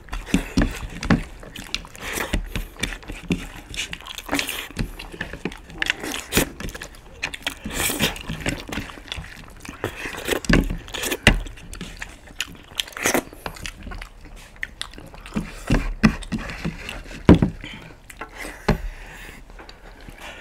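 Two people eating curry and rice with their hands: chewing and mouth smacks mixed with fingers squishing and scraping food on plates, as a string of irregular small clicks and smacks.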